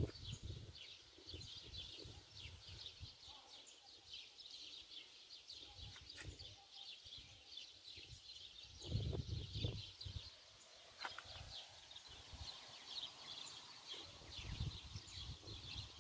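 Faint, busy chirping of small birds. Brief low rumbles of wind on the microphone come about nine seconds in and again near the end.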